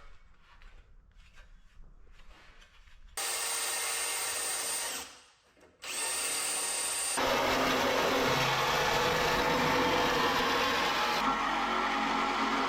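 A high-speed power tool starts abruptly with a high whine about three seconds in, stops briefly, then spins up again. From about seven seconds in it runs with a louder, coarser sound, as when it is working against material.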